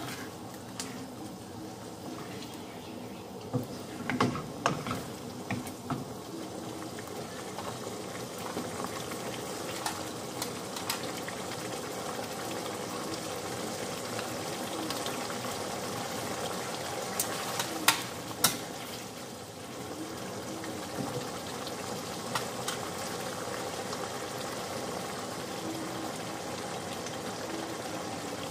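Minced-beef sauce simmering and bubbling in a frying pan, with a wooden spoon stirring and scraping through it. A few sharp taps of spoon on pan stand out, loudest a little past halfway.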